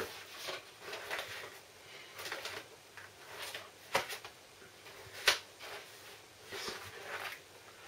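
A spiral-bound photo album being handled and leafed through: scattered rustling of paper pages, with two sharp clicks about four and five seconds in, the second the louder.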